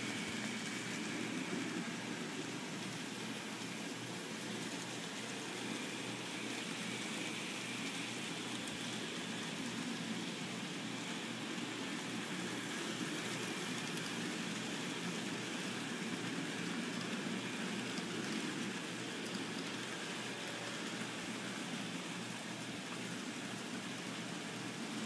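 N-scale model trains running on track: a steady, hissy whir of the small locomotive motors and wheels on the rails.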